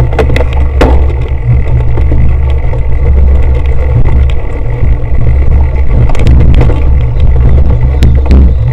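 Heavy wind rumble on a cyclocross bike's action-camera microphone while riding the course. Sharp knocks and rattles from the bike over rough ground cut through a few times.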